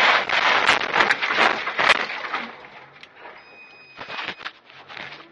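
Car tyres on a wet road heard from inside the cabin: a loud hiss and spatter of water spray for about two and a half seconds, then quieter, with a steady high whine in the last couple of seconds.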